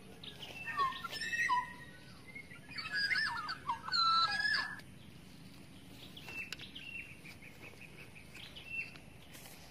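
Wild songbirds calling. A burst of quick whistled and chirping notes comes about a second in, a louder, busier burst follows around three to four and a half seconds in, and then a fainter run of rapid, evenly repeated chirps.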